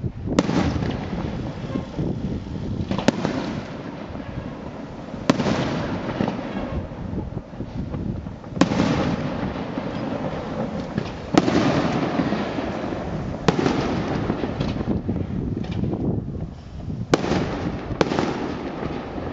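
Aerial firework shells bursting overhead, a sharp bang every few seconds, about eight in all, each followed by a long rumbling tail.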